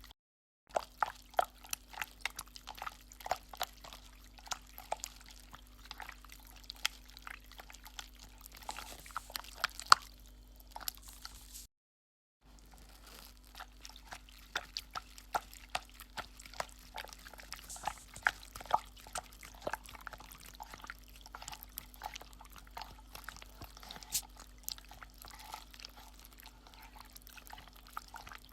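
Irregular wet drips and clicks, a few a second, over a steady low hum. The sound cuts out completely twice, briefly at the start and again about twelve seconds in.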